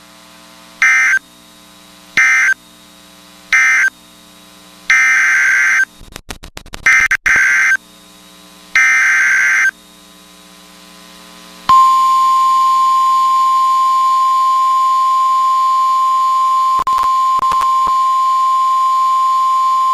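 NOAA Weather Radio Specific Area Message Encoding (SAME) data bursts: three short buzzy bursts closing the previous warning, then three longer bursts heading the next alert. About twelve seconds in, the steady single-pitched weather radio warning alarm tone starts and holds for about nine seconds.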